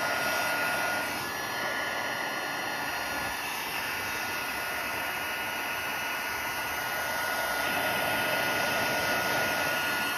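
Craft heat gun blowing steadily: a noisy, even rush of air with a constant high whine from its motor, melting embossing powder until it turns shiny.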